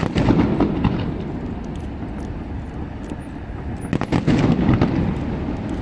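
Fireworks going off: a quick volley of bangs and crackles at the start and another about four seconds in, each followed by a low rumble.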